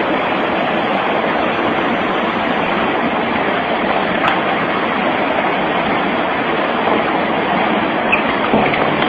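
Tsunami seawater surging through streets and between houses: a loud, steady rushing noise.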